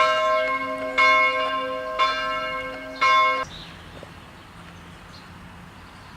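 A church bell tolling, one stroke about every second, four strokes in all, the ringing cutting off abruptly about three and a half seconds in.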